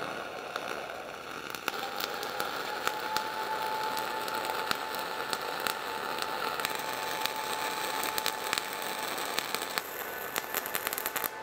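Dual shield (gas-shielded) flux-cored arc welding: the arc crackles and spits steadily while a stringer cap bead is run uphill on a vertical plate. A faint steady tone runs beneath the crackle for most of the time.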